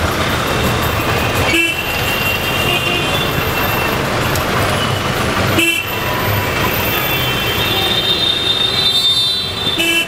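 Dense city traffic with vehicle horns honking again and again over a steady engine and road noise. The sound cuts out briefly twice.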